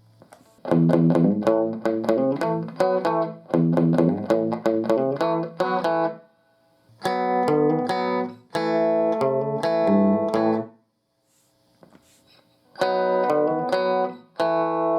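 Electric guitar played through a Fender tube combo amp. It plays quick picked note runs in several phrases, broken by two pauses of about two seconds, one near the middle and one later on.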